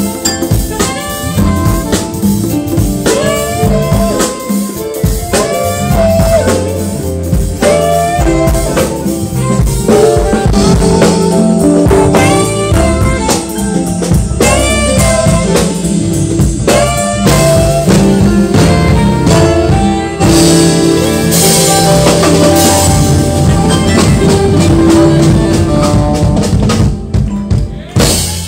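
Live jazz band playing, with congas and drum kit carrying a steady beat under bass, guitar and keyboards. The tune ends near the end.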